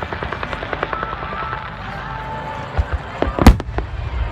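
Fireworks going off: a rapid run of small crackling pops, then one loud bang about three and a half seconds in.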